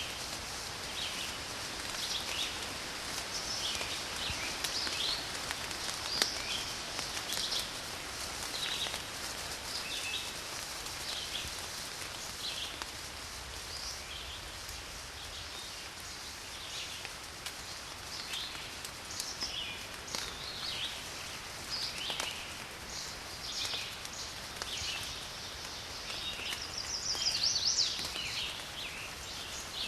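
Steady rain hiss with garden birds chirping on and off throughout. Near the end, one bird gives a louder, rapid trill.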